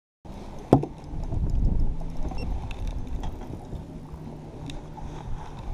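Low rumble of wind and water around an open fishing boat, with a single sharp knock just under a second in and a few lighter ticks after.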